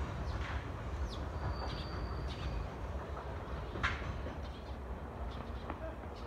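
Low rumble of a departing electric local train receding down the line and slowly fading. Small birds chirp in short, quick calls over it.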